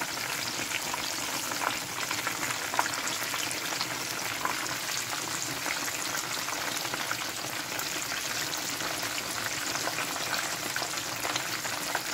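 Minced-meat chapli kebabs frying in hot oil in a pan: a steady sizzle full of small crackles.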